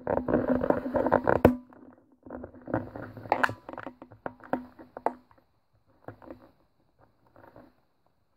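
Close handling noise: crinkling and rustling of packaging and plastic film, densest in the first second and a half, then thinning to scattered crackles and clicks. A steady low hum runs under the first five seconds.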